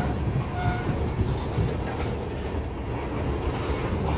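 Freight train of tank cars rolling past close by: a steady rumble of steel wheels on rail, with scattered clacks as the trucks cross the rail joints.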